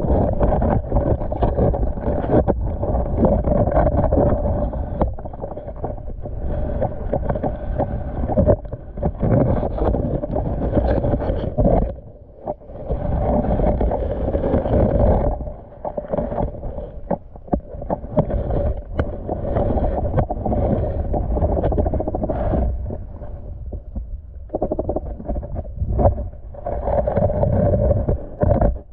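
Muffled water noise picked up by a camera submerged in shallow water, with a steady low hum that swells and dips briefly a few times.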